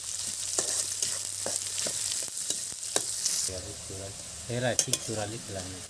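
Sliced onions sizzling in hot oil in a steel kadai, stirred and scraped with a metal spatula that clicks against the pan. About three and a half seconds in the stirring stops and the sizzle drops.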